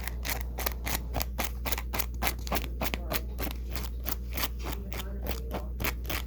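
A seam ripper's point scraping and picking through velcro to pull out stuck dirt and lint, making quick, irregular scratchy clicks about five a second.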